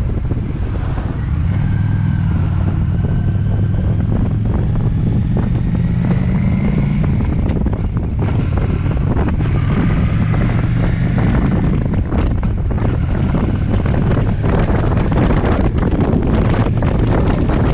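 Motorcycle engine pulling under acceleration, its pitch rising twice with a gear change around 8 seconds in, under heavy wind noise on the microphone.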